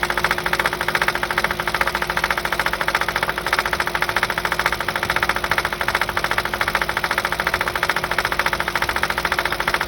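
Audi S4 B6's 4.2-litre V8 running with a steady, even rattle of about six strokes a second. This is the intermittent rattle that the owner blames on one of the AC compressor, the starter, the dual-mass flywheel or the timing chain.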